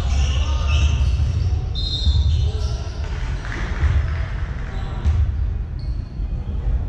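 A basketball being bounced on a hall court, with a few short high squeaks, typical of sneakers on the floor, over a steady low rumble of the hall.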